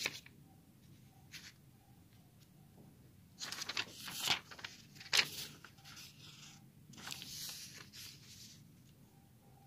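Thin paper pages of a tear-off daily calendar pad being flipped and rustled by hand: a few crisp rustles a little past the middle, one sharp flick among them, and a softer rustle later.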